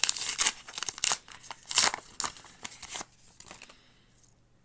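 Trading-card booster pack wrapper being opened: a quick run of crinkling, crackling rustles for about three seconds, dying away to a few faint rustles near the end.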